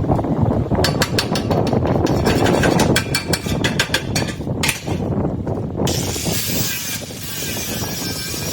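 Mechanical noise: a low rumble with a fast run of clicks for a few seconds, then a steady hiss comes in after about six seconds.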